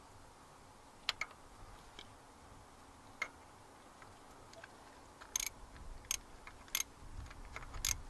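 Small socket ratchet clicking in short, irregular strokes while tightening the small screws of a plastic camshaft position sensor. The clicks are sparse at first and come more often and louder in the second half.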